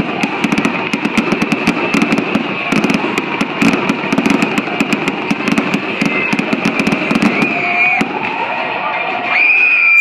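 Fireworks going off: dense crackling reports, many per second in quick succession, with gliding whistle tones near the end.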